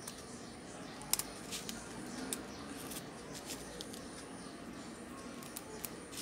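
Rubber bands being stretched and snapped around a phone to clamp a newly fitted LCD screen. It makes scattered light clicks and handling rustle, with the sharpest click about a second in.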